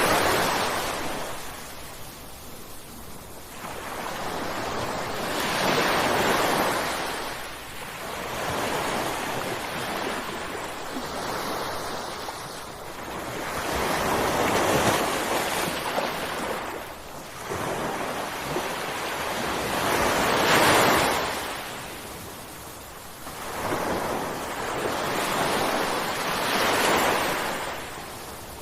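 Ocean waves crashing on the shore in a slow rhythm, a surge of surf swelling and fading about every six seconds, the loudest about twenty seconds in.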